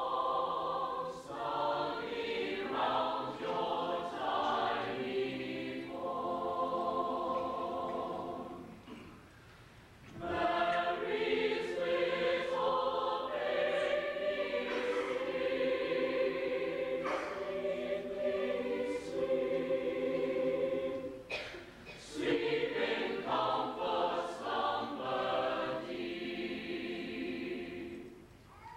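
Mixed choir of boys' and girls' voices singing together in sustained phrases, breaking off briefly about nine seconds in and again near the end.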